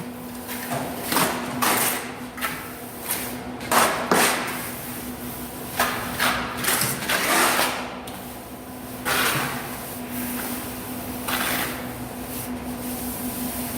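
Plastering trowel sliding and scraping across mortar on a wall in a run of irregular strokes, over a steady low hum.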